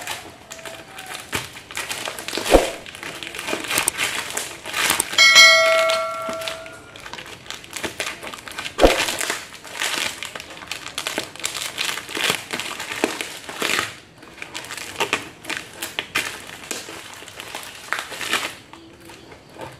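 Plastic wrapping and packing tape on a cardboard parcel crinkling and rustling as it is cut and pulled open with scissors, with a couple of sharp knocks. About five seconds in, a bell-like chime rings for over a second.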